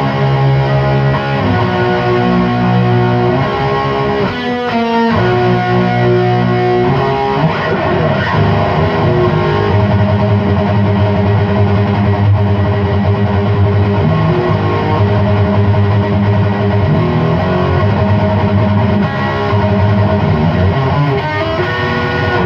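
Electric guitar played loud through a Chupacabra 100 tube amp with its clipping diodes switched off, set up like a hot-rodded JCM 800: distorted chords and riffs, with a little delay and reverb in the effects loop.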